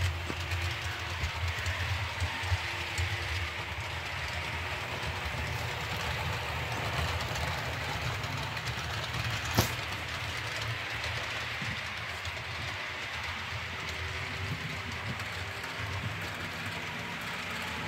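OO gauge model trains, Hornby class 395 and Bachmann class 411 electric multiple units, running around the layout: a steady hum of the small electric motors and the rumble of wheels on the track. A single sharp click comes about halfway through.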